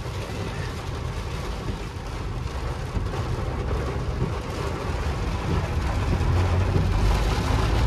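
Inside a Maruti Suzuki WagonR driving in heavy rain on a waterlogged road: steady engine and tyre rumble mixed with rain and water spray against the car. It grows louder about two-thirds of the way through.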